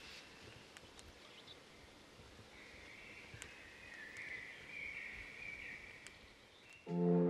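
Quiet rainforest ambience with a faint, high, wavering bird call and a few small clicks. Loud music with a plucked-guitar sound cuts in abruptly near the end.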